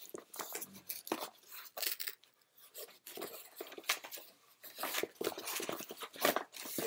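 White cardboard mailer box being opened by hand: its flaps and paper scraping and tearing in irregular short bursts.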